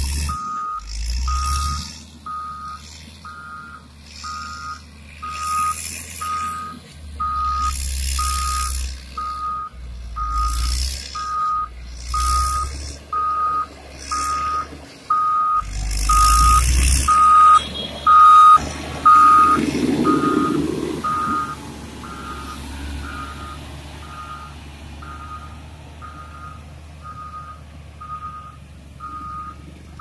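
Caterpillar motor grader's reversing alarm beeping steadily, about one beep a second, over its running diesel engine. Loud noisy surges come and go through the first half.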